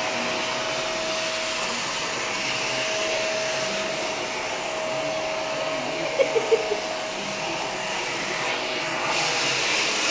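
Vacuum cleaner running steadily, an even rushing noise with a thin whine. About six seconds in there are three short, sharp sounds in quick succession over it.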